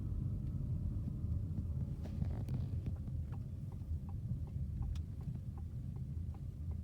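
Car turn signal ticking, about three clicks a second from about three seconds in, over the steady low rumble of the Ford's engine and tyres inside the cabin.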